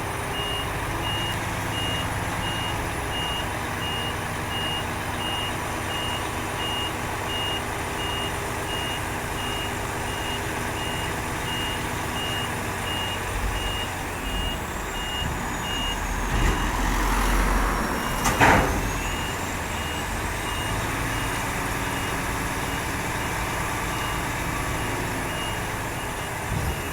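Roll-on roll-off skip lorry engine running steadily under a reversing alarm beeping at an even, rapid rhythm. About two-thirds of the way through, the beeping breaks off briefly and a single loud clank rings out.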